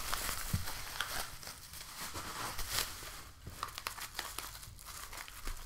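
Plastic bubble wrap crinkling and crackling as it is handled and folded, with the crackles thinning out in the second half.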